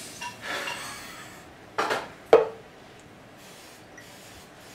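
Drinking glass and drink can being handled: a faint rustle, then two sharp clinks about half a second apart, the second louder with a brief ring.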